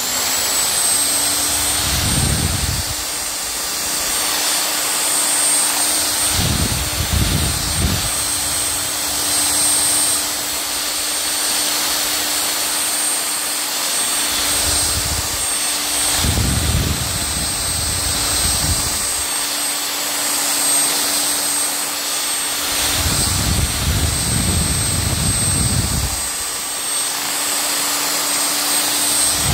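Electric hand mixer running steadily, its twin beaters whisking thin cake batter, with a high motor whine and a low hum. Low rumbles come and go several times as the beaters move through the batter.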